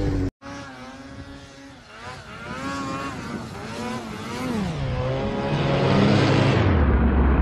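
Snowmobile engine revving, its pitch rising and falling several times and growing louder as the sled launches into a backflip, after a brief dropout just after the start.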